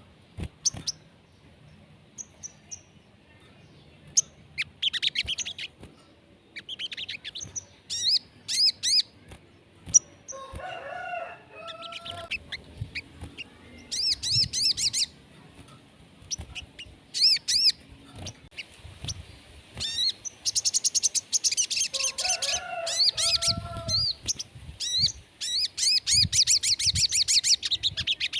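Sogon (crimson sunbird) song: repeated bursts of very high, rapid chirping trills that come thicker and almost continuous in the second half. Twice, about ten seconds in and again past twenty seconds, a lower warbling phrase is mixed in.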